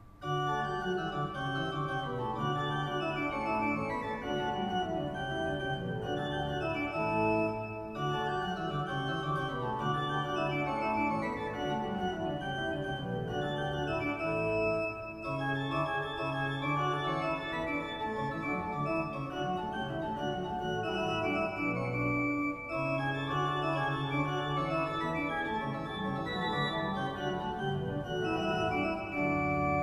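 Pipe organ playing sustained chords and melody, coming in suddenly at the start, with short breaks between phrases about every seven to eight seconds.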